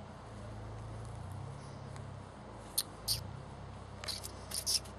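German Shepherd puppy chewing a rope-and-ball toy: a few short, high squeaky clicks, two about halfway through and a quick cluster near the end, over a steady low hum.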